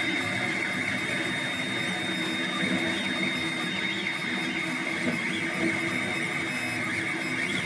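Monoprice Select Mini 3D printer printing: its stepper motors whine at pitches that keep shifting as the print head and bed move, over a steady high-pitched whine.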